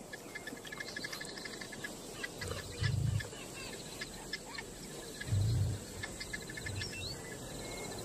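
Bush ambience of birds chirping and insects trilling in quick repeated pulses, with a low soft swell twice, about three seconds in and past the middle.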